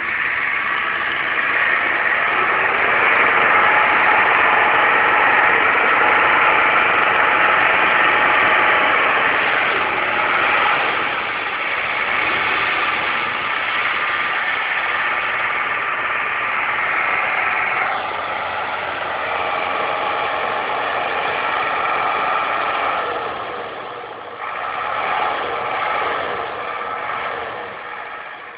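Engine of a Mercedes 814 box truck running and revving as the truck is drifted on snow, its pitch shifting up and down several times. The sound grows fainter near the end as the truck moves away.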